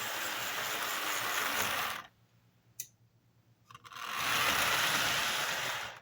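Rivarossi Bulletnose 4-6-4 Hudson model locomotive's motor and gears running for about two seconds, stopping, then running again for about two seconds, with a single click in the pause.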